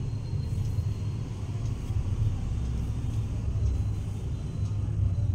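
Low, steady rumbling background noise with no speech.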